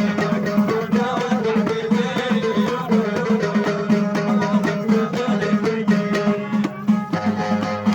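Traditional North African folk music played on plucked string instruments: fast, rhythmic plucking over a steady low drone, with a melody line that bends in pitch.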